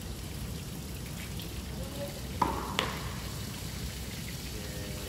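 Water from a garden hose spraying and pattering onto a plastic sheet, a steady hiss. Two sharp knocks about two and a half seconds in.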